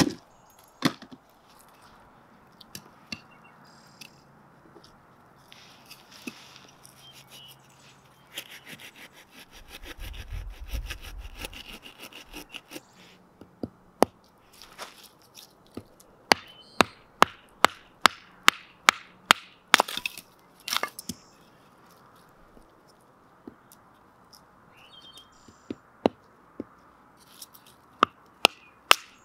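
Splitting firewood into kindling: a blade is knocked down through small sticks on a wooden block, giving sharp wooden cracks. The cracks are scattered at first, then come about twice a second in a steady run through the middle of the stretch and again near the end.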